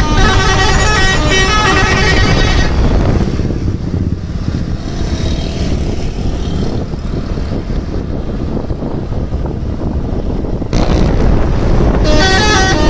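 A bus's telolet horn, a multi-tone horn playing a quick stepping melody, which breaks off after about two and a half seconds, leaving a low vehicle rumble. A louder rushing noise rises near the end, and the horn melody starts again just before the end.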